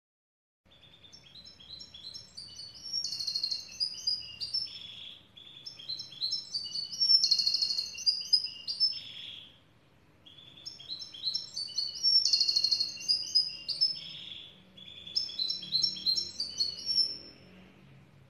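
Black siskin singing: four phrases of rapid, high twittering notes with short pauses between them, each phrase ending in a rasping note.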